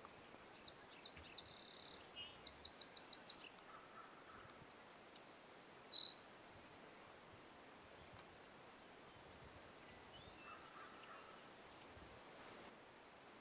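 Faint songbird chirps and quick high trills over quiet outdoor background noise, a little louder around five to six seconds in.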